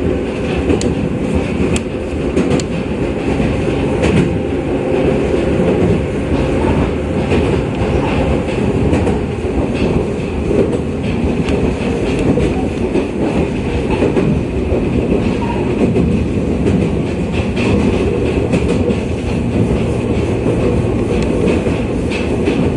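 Ōigawa Railway 7200 series electric multiple unit (ex-Tokyu) running at speed, heard from inside the car. There is a steady rumble of wheels on rail, with occasional clicks as the wheels cross rail joints.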